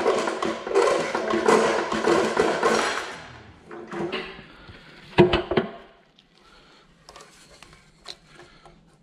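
Hand-tool work on engine parts during a teardown: about three seconds of scraping and clattering, then one heavy knock about five seconds in, followed by a few faint clicks.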